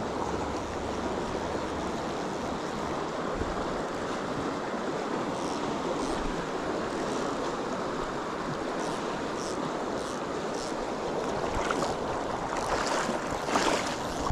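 Shallow, fast river rushing over a rocky riffle, a steady wash of water, with a few short sharp sounds near the end.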